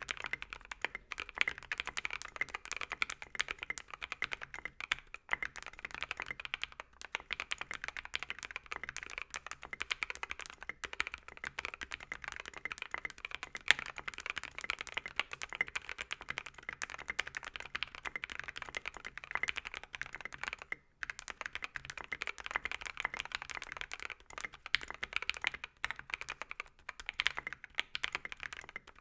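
Continuous fast typing on a mechanical keyboard with lubed and filmed Tangerine V2 67g linear switches, a brass plate and SA-profile keycaps: a dense stream of keystroke clacks, broken by one short pause about three-quarters of the way through.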